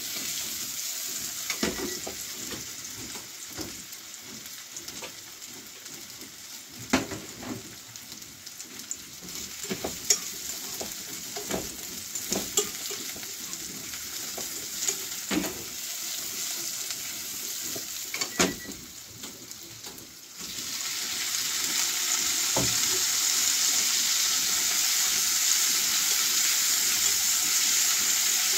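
Diced carrot, sweet potato and chicken sizzling as they are stir-fried and tossed in a frying pan, with sharp clicks and scrapes of a utensil against the pan. About twenty seconds in, a louder steady hiss sets in and holds.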